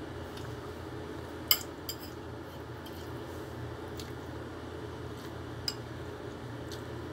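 A metal spoon clinking against a dish a few times, the sharpest clink about one and a half seconds in, over a steady low hum.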